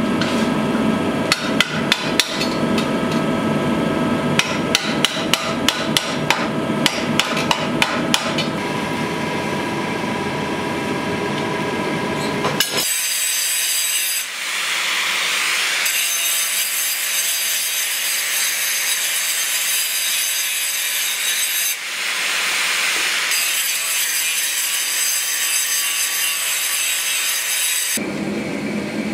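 Hand hammer striking a red-hot steel bar clamped in a vise, a quick run of ringing blows about twice a second. About 13 seconds in, the sound gives way to an angle grinder cutting into a steel bar with a steady high whine that briefly dips twice.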